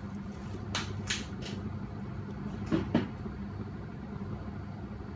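A few light kitchen clicks and knocks, then two sharper knocks close together about three seconds in, over a steady low hum.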